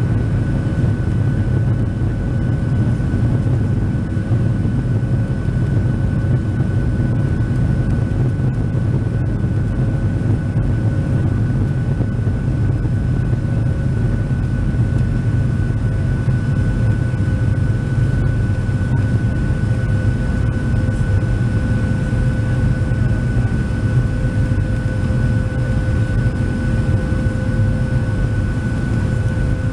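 Cabin noise of a Boeing 737-700 climbing after takeoff, heard from a seat over the wing: its CFM56-7B turbofan engines and the rushing air make a steady deep roar, with a thin, steady high whine above it.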